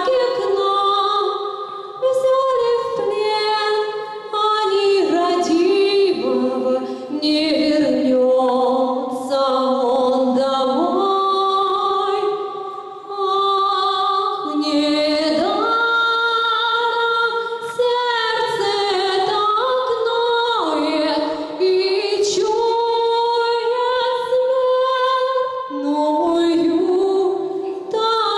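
A woman singing solo and unaccompanied into a handheld microphone, holding long notes and sliding between them.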